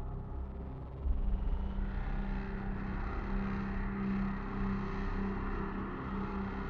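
Dark ambient drone soundtrack: a low rumble under a steady held tone, growing louder about a second in.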